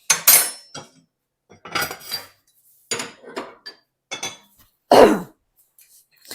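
Metal clanks and scrapes from a solid-fuel kitchen range being cleaned out before lighting. There are about half a dozen separate clatters, the loudest about five seconds in.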